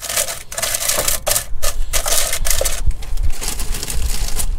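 Oven chips tipped by hand from a plastic bag into a paper-lined plastic air fryer basket: a dense, uneven run of small clicks and clatters from the chips landing, mixed with the bag crinkling.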